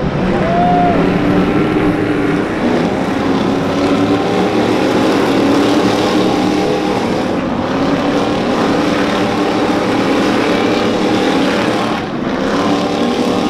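Stadium Super Trucks' V8 engines racing past, several trucks at once. The engine pitch keeps rising and falling as they accelerate and shift.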